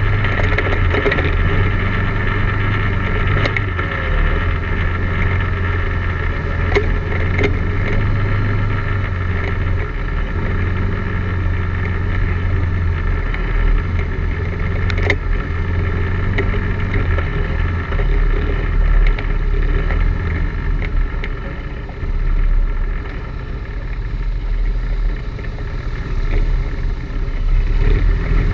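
ATV engine running steadily at trail speed, heard from the riding machine itself, with a few sharp knocks as it jolts over the rough trail. The engine eases off about three quarters of the way through and picks up again near the end.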